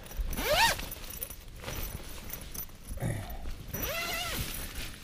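Tent door zip being pulled open in two quick strokes, each a short buzz whose pitch rises and then falls with the speed of the pull, over wind noise on the microphone.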